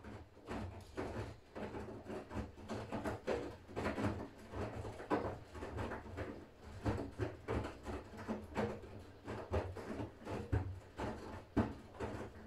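Siemens iQ500 front-loading washing machine running a wash: a steady low hum with irregular knocks and thuds throughout as the drum turns the laundry.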